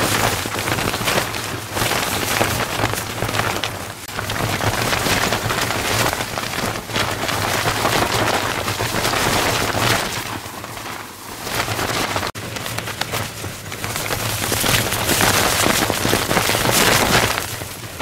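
Wind gusting hard against a tent, the fabric flapping and rattling in surges that rise and ease every few seconds.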